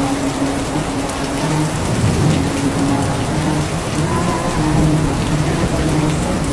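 Steady rain falling, with a low rumble of thunder swelling about two seconds in. Beneath the rain run faint, held low sung notes of shalawat chanting.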